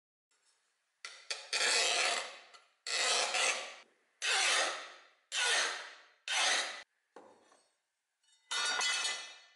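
Hand file drawn across the edge of a hardened and tempered 9KhF steel cleaver blade in about eight separate scraping strokes, each half a second to a second long, the one near seven seconds in fainter.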